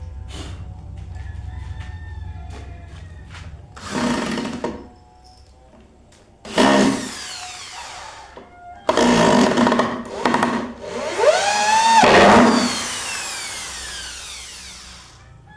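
Power drill driving screws into a wooden table leg in several short bursts. In the last and longest burst the motor speeds up and then winds down. Background music plays underneath.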